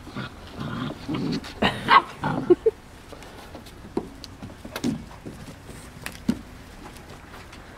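Young puppies barking and yipping in play, a few short calls in the first three seconds with the loudest about two seconds in, then only scattered light taps.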